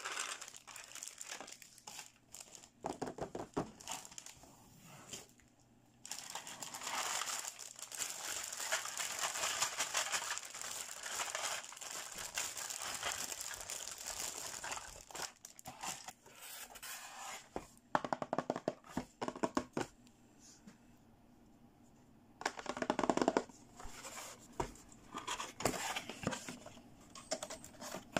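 Clear plastic packaging bags and cellophane wrap crinkling as they are handled, in uneven bursts with a quieter spell about three quarters of the way through.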